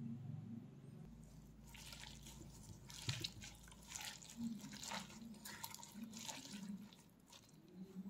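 A hand mixing masala-coated chicken pieces with fresh herbs and leaves in a clay pot: wet squelching and leafy rustling in a run of short crackly sounds, which ease off near the end.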